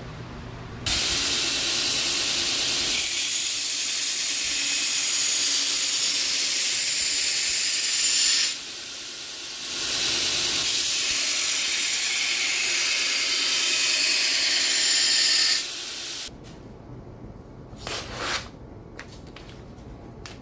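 Belt grinder grinding the bevels into a hardened 80CrV2 steel cleaver blade: a loud, steady hiss of the abrasive belt on steel. The blade is lifted off the belt for about a second around nine seconds in, and the grinding stops after about fifteen seconds. A few light paper rustles follow near the end.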